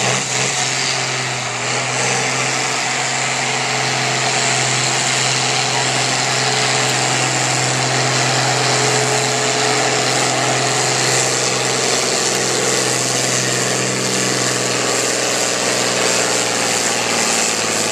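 John Deere pulling tractor's diesel engine running flat out under heavy load as it drags a weight-transfer sled, black smoke pouring from the stack. A loud, steady drone that barely changes in pitch.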